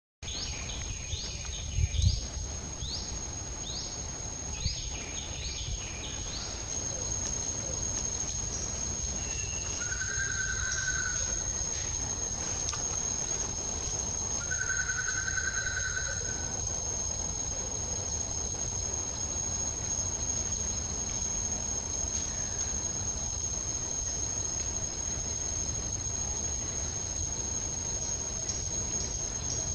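Outdoor insect ambience: a steady, high-pitched insect drone. A quick run of short falling chirps comes during the first six seconds, and two brief held whistle-like notes come about ten and fifteen seconds in. Underneath is a low rumble with a single thump about two seconds in.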